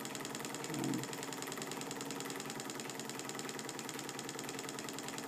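Small home-built two-piston Stirling engine, fired by a methylated-spirit burner, running steadily: an even, rapid mechanical ticking from its moving parts.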